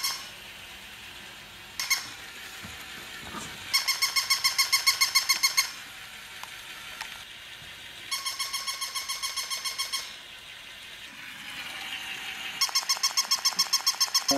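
Battery-operated plush toy dog's electronic barking: a rapid, even run of high-pitched yips, about seven a second, in bursts of about two seconds that come three times with quiet gaps between. A short click about two seconds in.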